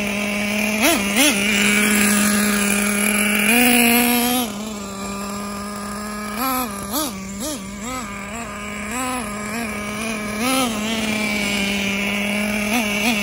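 Traxxas 3.3 two-stroke nitro engine in an RC monster truck running, with repeated short throttle blips that make its pitch rise and fall many times.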